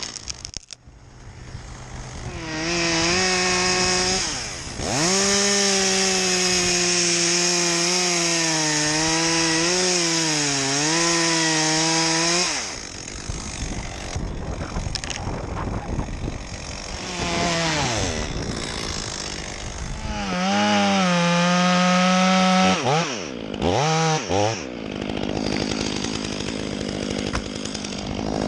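Chainsaw engine revving to full throttle and cutting wood for about eight seconds, its pitch dipping under load, then dropping back to idle. It revs again for a few seconds later on, ending in two quick blips of the throttle.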